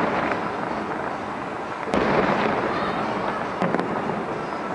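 Aerial firework shells bursting: one loud boom about two seconds in that echoes as it fades, then two lighter bangs in quick succession near the end.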